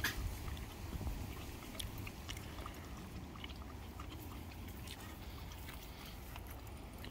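Quiet backyard ambience: a low wind rumble on the microphone, fading after the first second, with scattered faint clicks.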